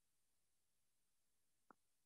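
Near silence: room tone, with one brief faint click near the end.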